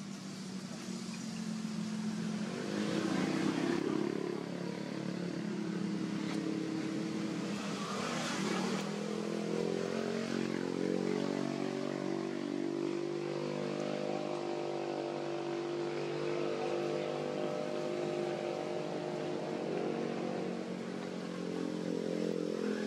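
A motor vehicle engine running steadily, its pitch shifting slowly, with louder noisy swells about three and eight seconds in.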